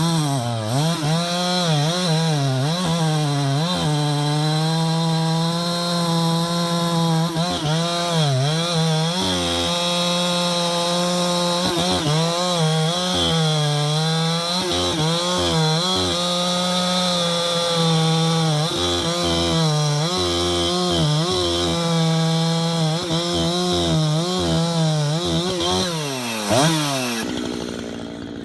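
Husqvarna 372XP two-stroke chainsaw running at full throttle while bucking a large fir log, its pitch dipping and recovering again and again as the chain bites into the wood under load. Near the end the throttle is let off and the saw drops to a much lower, quieter note.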